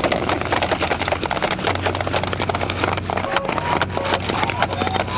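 Rapid, irregular clicking and knocking over a steady low hum.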